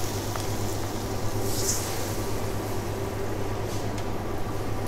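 Steady low electrical hum with an even hiss behind it, typical of a kitchen with an induction hob running.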